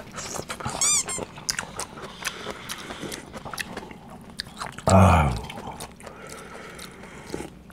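A person eating cup ramyeon: noodles slurped and chewed, broth sipped from the paper cup, with small clicks of chopsticks and mouth sounds. A short voice sound comes about five seconds in.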